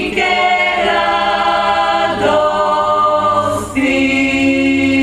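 Women's klapa ensemble singing unaccompanied in close harmony, drawing out long held chords that shift about every two seconds, and settling on one long sustained chord about four seconds in.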